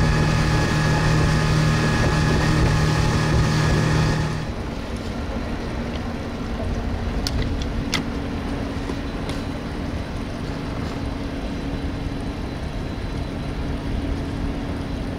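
A 40-horsepower outboard motor runs steadily at speed over the rush of the boat's wake. About four seconds in it gives way to a quieter steady low hum with a few sharp clicks.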